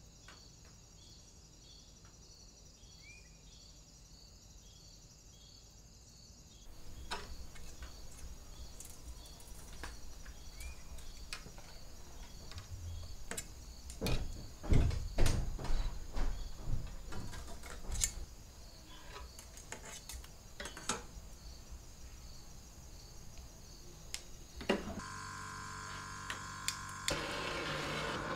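Faint steady chirping of crickets, then small metal clicks and knocks as fine silver wire is straightened and bent by hand, loudest about halfway through. About three seconds before the end a steady hiss with a hum sets in: a gas torch burning to anneal the silver wire.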